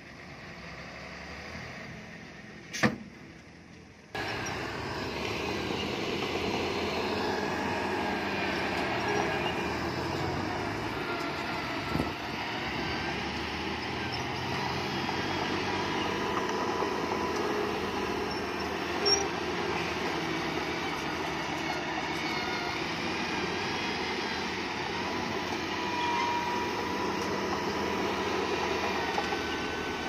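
Crawler bulldozer working: a steady engine with high squealing from its steel tracks. The sound steps up abruptly about four seconds in, after a quieter start with one sharp click.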